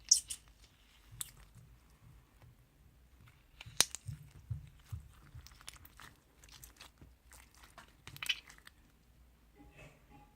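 Slime being handled and squished by hand, giving scattered sharp crackles and clicks, the loudest just after the start, about four seconds in and a little after eight seconds.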